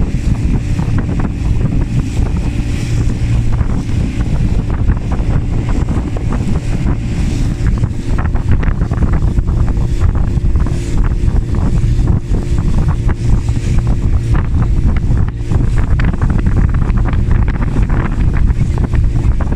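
Small motorboat under way at speed: its engine hums steadily while spray splashes and slaps against the hull, with wind buffeting the microphone.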